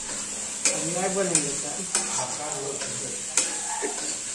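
Tomato and onion masala frying in a steel kadhai with a steady sizzle, while a metal spatula stirs it and knocks against the pan a few times.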